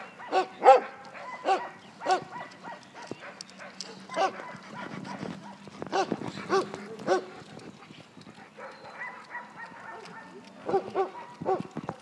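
Dogs barking in short, sharp barks that come in clusters, with a quieter lull about two-thirds of the way through before a few more barks near the end.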